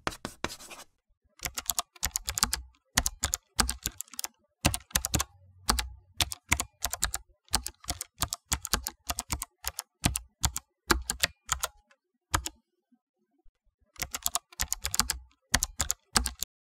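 Typing on a computer keyboard: quick runs of sharp key clicks, with a pause of about a second near three quarters of the way through before the typing resumes.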